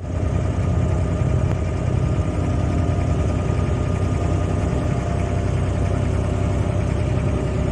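Inboard diesel engine of an abra, a wooden water taxi, running steadily under way, heard close up from on board as a steady low drone.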